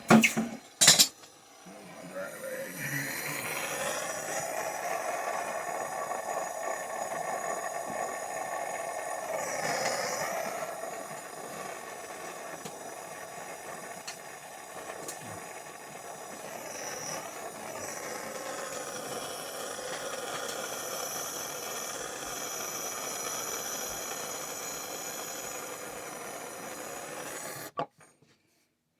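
Plumber's torch flame burning with a steady rushing hiss as it heats a soldered male adapter to sweat it off, after two sharp clicks near the start. The flame sound cuts off abruptly near the end.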